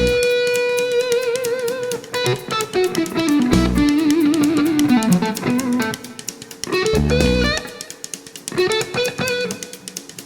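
Guitar-led instrumental music: a lead guitar plays a slow melody of long held notes with vibrato, with low bass or drum hits about a third of the way in and again past the middle.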